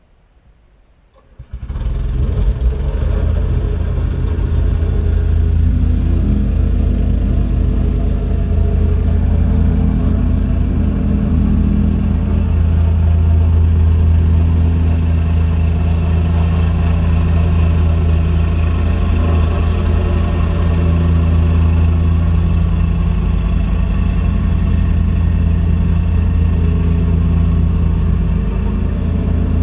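Mini excavator engine running steadily with a low, even hum, coming in suddenly about a second and a half in.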